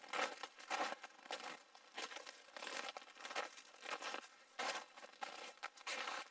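Walking through dry brush: leaves and twigs crunching and rustling in irregular bursts, about two a second.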